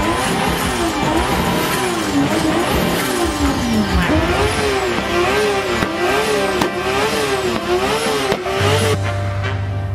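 Drift car's engine revving up and down over and over as it slides, with tyre noise underneath. In the second half the revs rise and fall in a quick regular pattern, about three times every two seconds. Music comes in near the end.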